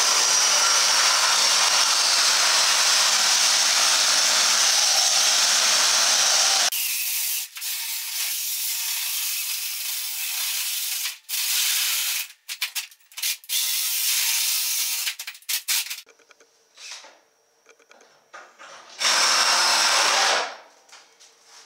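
Cordless drill spinning a hole saw that cuts through the sheet-metal inner panel of a truck hood, with the teeth grinding against the metal. It runs in one long cut of about seven seconds, then in shorter bursts with stops, then after a pause in one last burst near the end.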